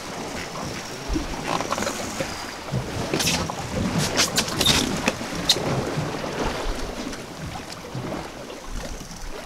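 Wind on the microphone and choppy sea water washing against the side of a small fishing boat, with several short, sharp knocks or splashes around the middle.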